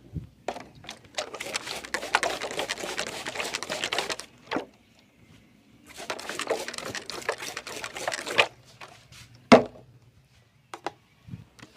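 Fingers working through hair and scalp in a head massage, close to the microphone: two long stretches of dense crackling and rustling of hair, with a few single sharp snaps or taps between.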